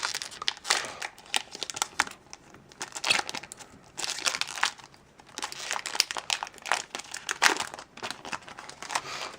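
A Magic: The Gathering booster pack being opened by hand, its foil wrapper crinkling and crackling irregularly.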